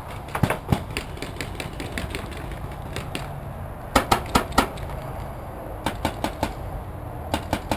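Paintball markers firing in short, rapid, irregular strings of sharp pops, the strongest cluster about four seconds in.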